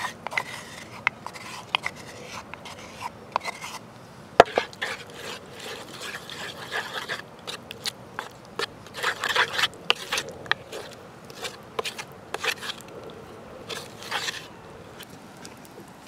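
Wooden spoon scraping and clicking against a shallow dish as thick sauce is spooned and spread, with one sharp knock about four seconds in.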